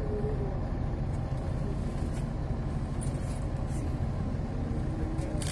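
Bus engine idling with a steady low rumble, heard from inside the bus cabin.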